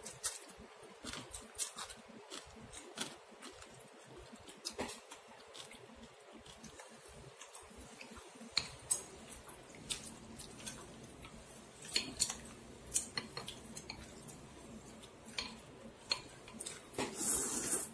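Chopsticks and a ceramic spoon clicking and clinking against a ceramic bowl of noodle soup as noodles are lifted out, in scattered light taps. There is a short noisy stretch near the end.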